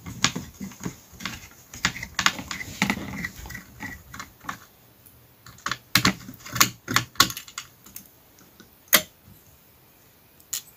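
Small screwdriver loosening the screws of a laptop motherboard's heatsink: irregular sharp clicks and ticks of the tool and screws on the metal bracket, with light handling noise in the first few seconds.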